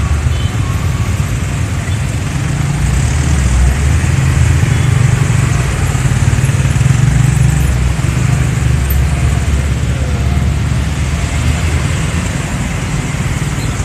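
Slow, congested road traffic: cars, motorcycles and a heavy box truck with engines running at low speed. A steady low rumble grows a little louder in the middle.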